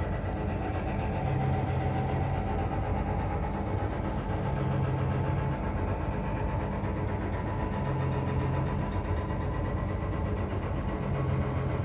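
Sand dredger's engines and pump machinery running steadily while sand-and-water slurry pours from the discharge pipe into a barge's hold, with a deep hum that swells about every three seconds.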